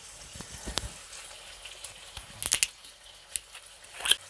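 Green soju bottle's metal screw cap being twisted open: a few sharp clicks and cracks, the loudest about halfway through, over a faint steady sizzle from pork on the grill.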